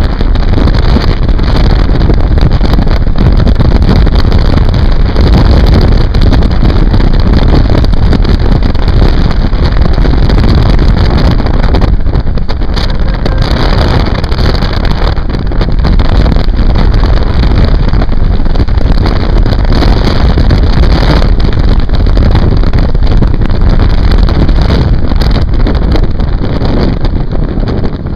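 Heavy, steady wind buffeting the microphone of a camera carried at speed over snow.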